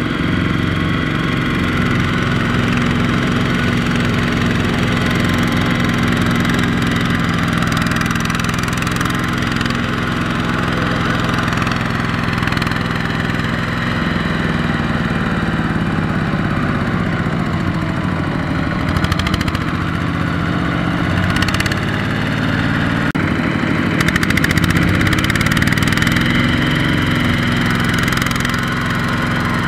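Kubota RT120 walking tractor's single-cylinder diesel engine running under load as it pulls a loaded rice trailer through deep mud. Its speed dips and rises a few times near the middle, with a few brief clanks later on.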